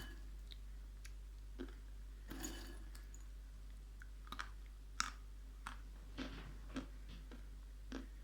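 Scattered light clicks and taps, about a dozen spread irregularly, from hand-handling of small hard objects.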